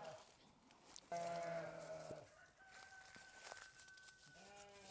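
Hair-sheep lambs bleating: one long bleat about a second in and another starting near the end, with a faint thin high call between them.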